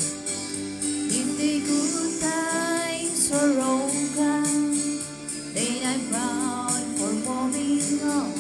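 Music: a woman singing held, gliding notes over a steady instrumental accompaniment.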